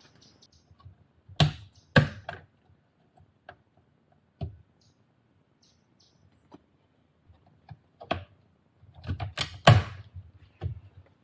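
Sharp plastic clicks and knocks from a stubborn interior trim piece being pried and worked loose around the shifter, a few single knocks and then a quick cluster near the end as it comes free.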